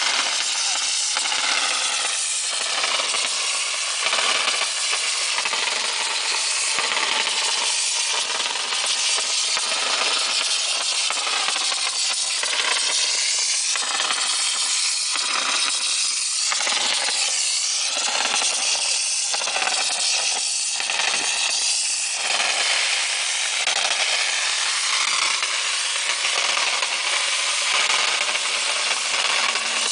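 Steady loud hiss of compressed air and mortar jetting from the spray nozzle of a small 100 V tube mortar pump's spraying rig.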